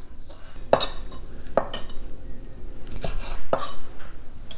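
Chef's knife cutting andouille sausage on a wooden butcher-block board, the blade knocking on the wood several times at irregular intervals.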